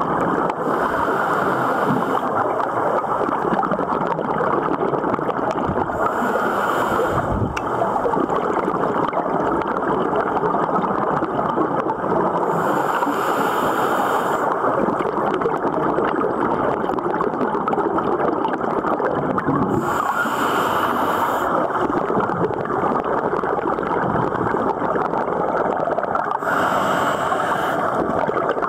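A scuba diver breathing underwater: a steady muffled rush of water and bubbles, with a hiss of breath through the regulator five times, about every six or seven seconds.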